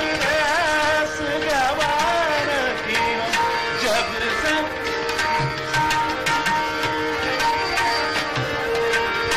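Hindustani classical vocal music in Raag Yaman: a male voice sings a wavering, gliding melodic phrase over a steady tanpura drone, with tabla strokes. The voice falls away about three seconds in, leaving the tanpura drone and tabla.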